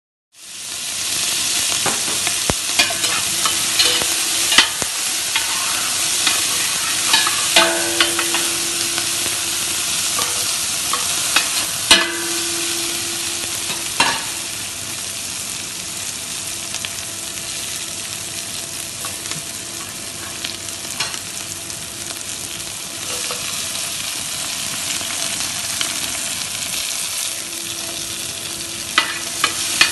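Sliced onions, green chili, ginger, garlic and lemongrass sizzling in oil in a stainless steel stockpot while being stirred, with a steady high hiss. A handful of sharp knocks of the stirring utensil against the pot.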